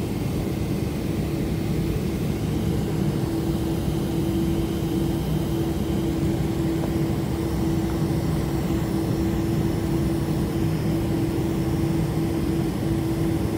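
Boeing 747 cabin noise while taxiing: the jet engines' steady rumble heard from inside the cabin, with a steady low hum over it that does not change in pitch or loudness.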